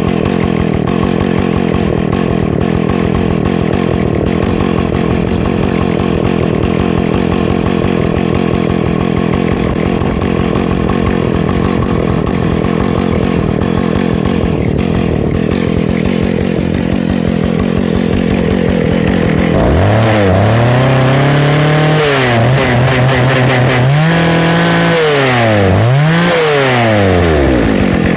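Husqvarna 2100 CD two-stroke chainsaw idling steadily, then revved up and dropped back several times in its last several seconds.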